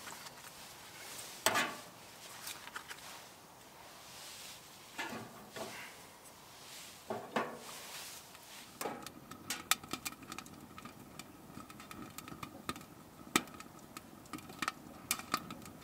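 Wood fire burning in a small titanium tent stove: a few knocks and rustles as the kindling catches, then from about nine seconds in, frequent sharp crackles and pops from the burning wood.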